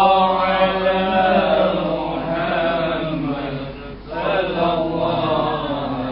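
Men's voices chanting together in a drawn-out devotional chant, with a short break about four seconds in before the next phrase.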